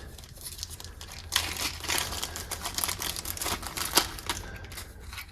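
Plastic packaging crinkling and rustling in the hands, with irregular sharp crackles and one louder click about four seconds in.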